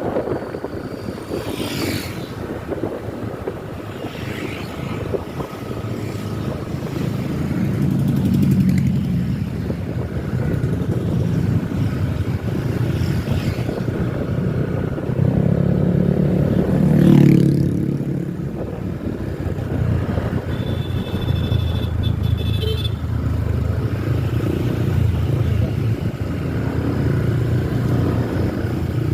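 Road traffic passing: a steady engine rumble of motorcycles and other vehicles, swelling as vehicles go by, loudest about 17 s in. A brief high-pitched tone sounds around 21 to 23 s.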